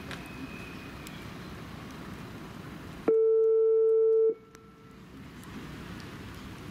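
A single loud, steady electronic buzzer tone lasting just over a second, starting about three seconds in and cutting off abruptly: the show-jumping start signal telling the rider she may begin her round. Outdoor background noise surrounds it.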